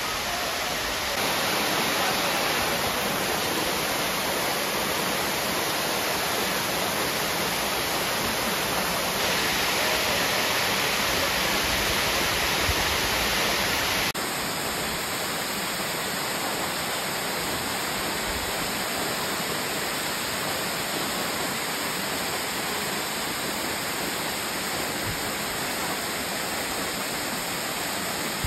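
Steady rushing noise of a waterfall, even and unbroken, dropping slightly in level about halfway through.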